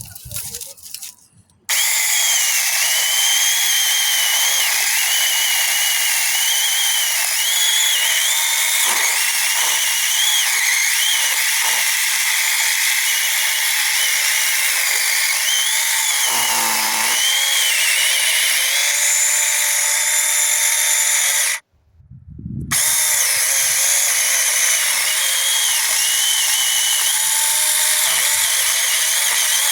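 A power tool motor running steadily with a high, slightly wavering whine. It cuts out about two-thirds of the way through and starts up again about a second later.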